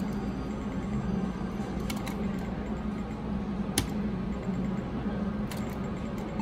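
Steady casino-floor hum with a few sharp clicks from a video poker machine as hands are dealt and drawn in quick succession.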